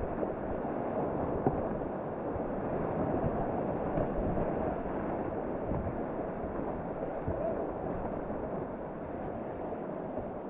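Rushing river whitewater, a steady wash of noise, with a low rumble of wind on the microphone.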